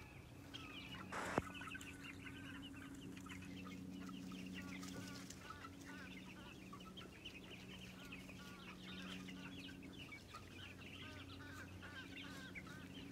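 Many birds chattering and chirping, with farm chickens clucking. There is a single sharp knock about a second in.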